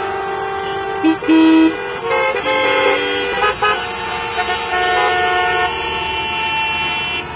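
Many vehicle horns honking together in traffic: overlapping long and short blasts at different pitches, with a loud low blast about a second in.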